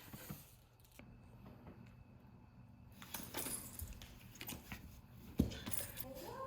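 Faint clicks and rustles of a small dog eating cake, with a sharper knock about five and a half seconds in.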